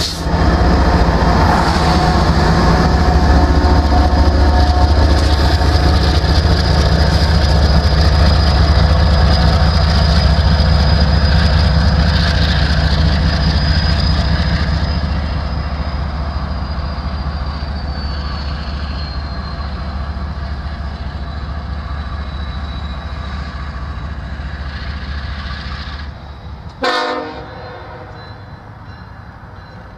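Union Pacific diesel freight locomotives and rail cars rumbling past, with a high steady whine that slowly drops in pitch; the sound fades after about fifteen seconds. Near the end comes a brief, loud horn note.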